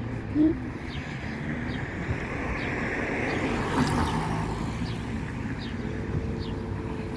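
A car passing by on the road: a rush of engine and tyre noise that swells to a peak about four seconds in, then fades.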